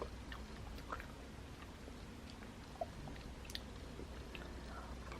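Faint chewing of a brownie, with a few small scattered clicks.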